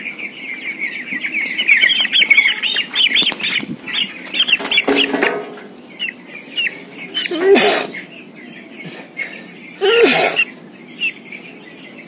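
Many 12-day-old chicks peeping, a dense chorus of short high chirps that thins out after about five seconds. Twice in the second half a louder harsh sound breaks in.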